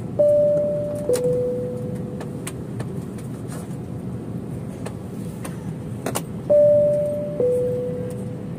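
Airliner cabin chime sounding twice, about six seconds apart, each a high note stepping down to a lower one (ding-dong), over the steady hum of the cabin.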